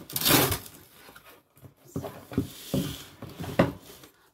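Flat-pack furniture box and its packaging being handled while unpacked: a loud burst of rustling at the start, then several shorter scrapes and knocks.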